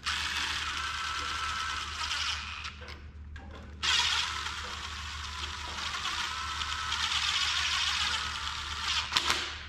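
DeWalt cordless impact driver on a long extension running down the rocker-shaft hold-down bolts on an engine's cylinder head. It makes two long runs, about two seconds and then about five seconds, with a short pause between, snugging the bolts a little at a time so the rocker shaft doesn't bend.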